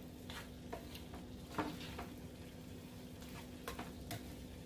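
Seitan and vegetable stir fry being stirred in a hot pan after soy sauce is added: a faint sizzle with irregular clicks and scrapes of the utensil against the pan, the sharpest about a second and a half in, under a low steady hum.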